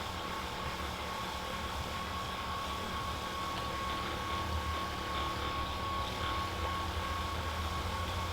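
Steady low hum with a constant thin high whine from room air conditioning or ventilation; no joint cracks are heard.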